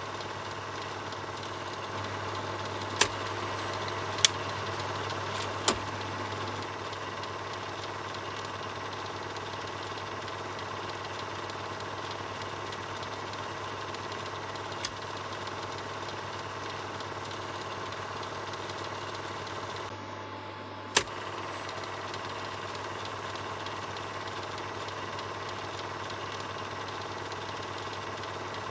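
Film projector running with a steady mechanical whirr, broken by a few sharp clicks: three in the first six seconds and one more about twenty-one seconds in.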